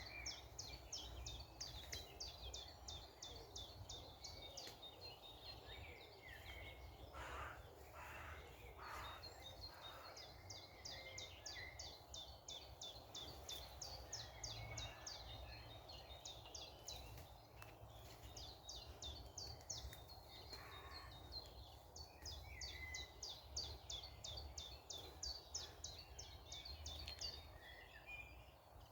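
Small birds singing: runs of quick, sharp, high notes repeating several times a second, with a few scattered lower calls, over a faint low steady rumble.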